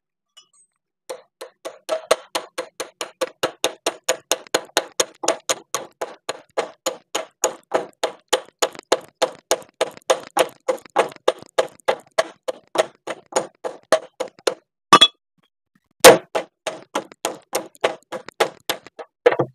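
Ratchet wrench clicking steadily at about four clicks a second as the clamp bolt of a motorcycle's kick-start lever is tightened. Near the end the clicking stops for two louder metal knocks, then goes on again for a few seconds.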